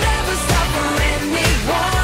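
Upbeat pop song with a steady beat of about two beats a second and a voice singing the melody.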